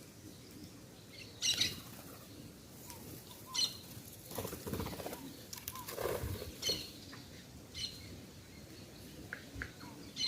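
Birds at a feeding spot giving short, sharp chirps every second or two, with a few seconds of wingbeats around the middle as birds flutter in and out.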